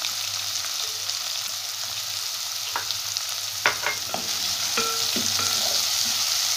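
Chopped onion and cumin seeds frying in hot oil in a metal kadhai, a steady sizzle. From about halfway a spatula stirs them, knocking and scraping against the pan, with a few short metallic rings.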